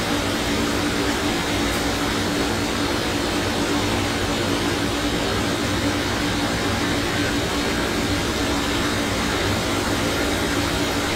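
Steady hiss with a low, even hum, unchanging throughout.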